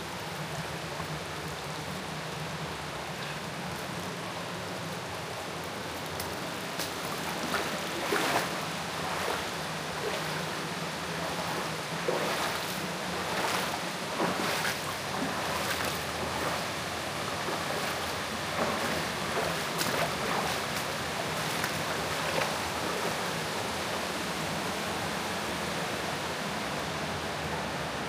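Steady rush of flowing water. Through the middle stretch, a scattering of short, sharp, irregular sounds rises above it.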